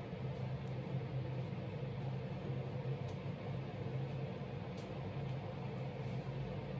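Steady low machine hum with an even hiss underneath, and a few faint ticks.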